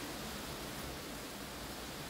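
Heavy rain falling, a steady even hiss with no breaks.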